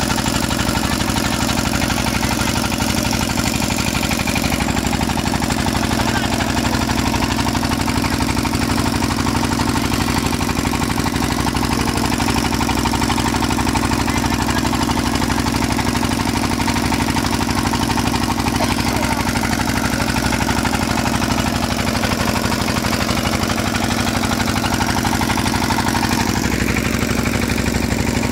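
Inboard engine of a small wooden passenger boat running steadily, an even, fast chugging at constant speed.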